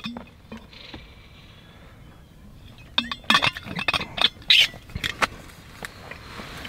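Handling noises inside a tent: after a quiet stretch, a quick run of clicks, crinkles and scrapes about three to five seconds in, as gear and food are handled.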